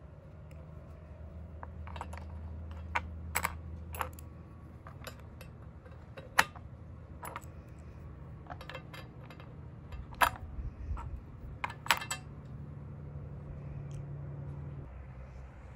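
Small metal mounting clips and hardware clicking and clinking against a plastic Shad carrier base plate as they are fitted into its slots by hand: a string of irregular sharp clicks that stops a few seconds before the end, over a low steady hum.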